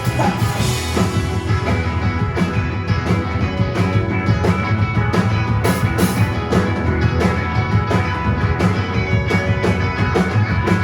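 Live rock band playing an instrumental passage: electric guitars, bass and a drum kit with steady beats and cymbals, without vocals.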